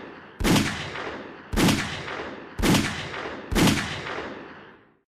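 Four single shots from a short-barrelled 9mm pistol firing Federal HST 147-grain hollow points, about a second apart, each sharp report dying away over about a second.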